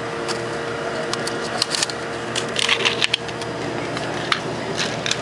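Short sharp plastic clicks and rattles, thickest about two and a half to three seconds in with a few more near the end, from a plastic fountain-drink cup and lid being handled, over a steady hum.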